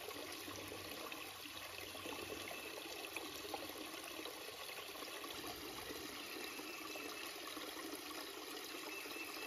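Small rocky woodland stream trickling steadily over and between stones.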